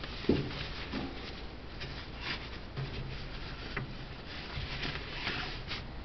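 Handling noise as the phone rubs and rustles against clothing, with one sharp knock about a third of a second in and scattered soft clicks after it.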